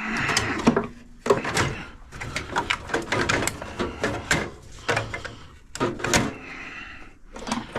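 Irregular clicks, knocks and scraping of microwave parts being handled and pried apart by hand.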